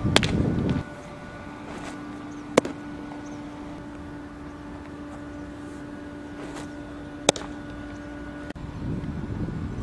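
A baseball popping into a leather glove: sharp single cracks just after the start, about two and a half seconds in and about seven seconds in, over a steady low hum and outdoor wind noise.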